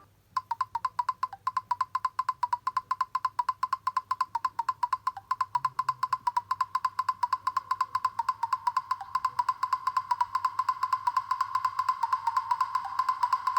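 A Nokia Lumia 520 ringtone: a fast, even run of short wood-block-like clicks on one pitch, starting about half a second in and repeating steadily without a break.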